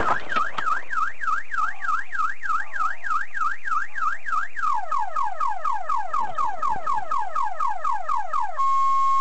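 Car alarm sounding, set off by a low-speed collision. It opens with a fast up-and-down whoop about four times a second, changes to quick falling sweeps about halfway through, and switches to one steady tone near the end.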